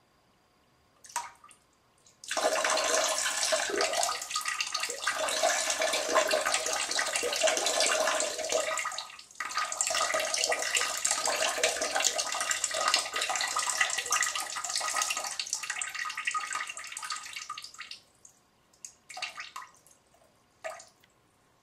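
Stream of urine splashing into toilet bowl water from a stand-to-pee packer, starting about two seconds in, breaking off briefly near the middle, then ending in a few separate drips and dribbles.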